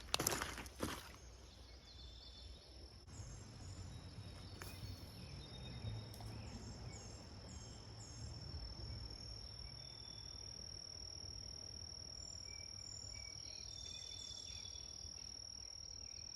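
Insects singing: a steady high-pitched drone with short repeated chirps coming and going above it, over a low rumble. A few sharp knocks right at the start.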